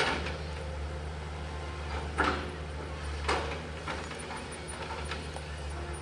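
Crawler excavator's diesel engine running with a steady low drone. Several sharp clanks from the working machine cut through it, the loudest about two seconds in and again just after three seconds.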